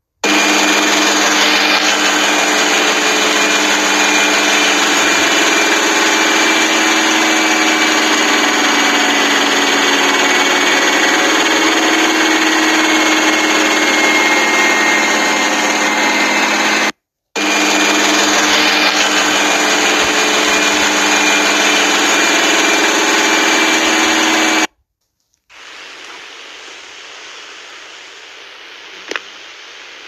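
Arctic front-loading washing machine in its final spin at 1300 rpm in service mode, a loud, steady whine and rush, briefly cut out about two-thirds of the way through. Near the end it gives way to a much quieter steady hum with a single click.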